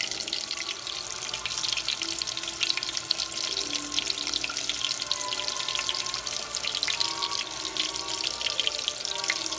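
Breaded shrimp deep-frying in hot oil, a dense steady sizzle of many fine crackles. Soft background music with held notes plays underneath.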